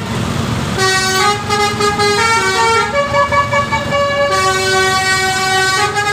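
Basuri V3 musical air horn ('telolet') on a tour bus playing a melody in held, stepped notes, starting about a second in, over the low rumble of the bus.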